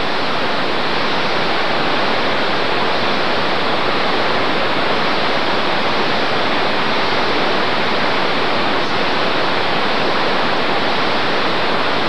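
A mountain stream cascading down a waterfall makes a steady, unbroken rush of water.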